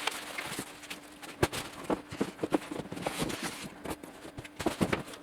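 Packaging handled by hand: irregular rustling with many small clicks and knocks, cutting off suddenly near the end.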